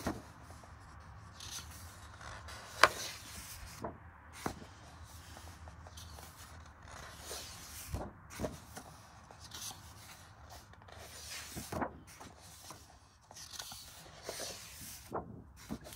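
Pages of a colouring book being turned: soft paper rustles and swishes at irregular intervals, with a sharp tap about three seconds in and a few lighter knocks.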